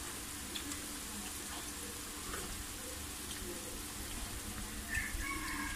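Broth boiling hard in a wok, a steady bubbling hiss, with a ladle stirring through it about four seconds in.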